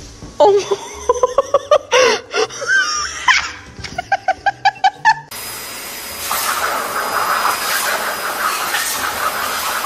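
High-pitched vocal sounds ending in a quick run of laughter. About five seconds in, these give way to a steady loud rushing hiss with a faint high whine: a pet grooming dryer blowing on a puppy's coat.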